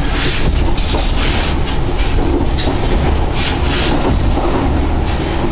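Yoro Line electric train running along the track, heard from inside the car: a steady low rumble of wheels on rail with irregular clattering knocks.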